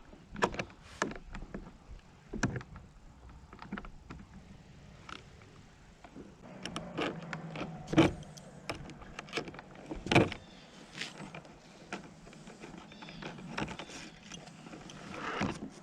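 Scattered light clicks and knocks of a small crescent wrench working the rudder cable fittings as they are threaded off, with a couple of sharper knocks near the middle.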